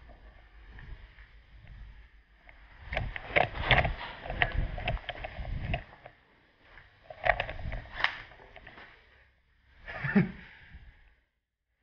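Irregular knocking and rattling clatter in three bunches, about three, seven and ten seconds in, with low thuds under the clicks.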